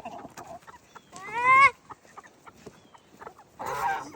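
Chickens clucking, with one loud call rising in pitch about a second in and a weaker call near the end.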